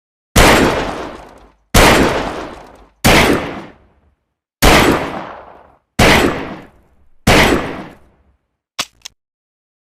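Saturday night special revolver fired six times at an even pace, about one shot every second and a half, each shot sharp and trailing off over about a second. Two light clicks follow near the end.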